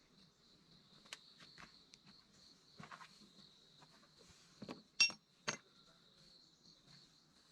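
Steady high insect chirring, like crickets, with scattered light knocks and clatters. Two sharper knocks about half a second apart, a little past the middle, are the loudest sounds.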